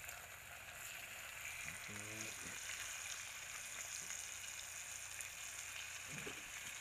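Flour-dredged fish frying in hot oil in a cast-iron pan, a steady sizzle.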